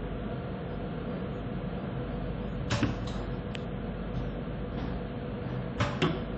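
Steady machine hum with a faint steady tone, from a hand-held electric tool being run along the slot of a plastic pocket template. Twice a pair of sharp clicks cuts in, about three seconds apart.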